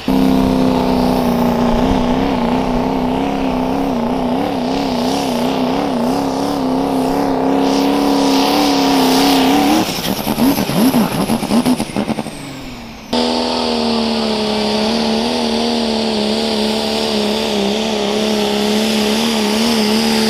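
Diesel pulling pickups under full load on a pull track: an engine held at high revs with a steady, slightly warbling note. About ten seconds in the note breaks up into uneven revving and fades, and about three seconds later a second diesel pulling truck is heard running flat out with a steady note.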